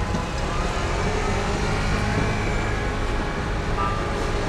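Steady road traffic noise, with passing vehicles' engines running under a continuous wash of tyre and road noise.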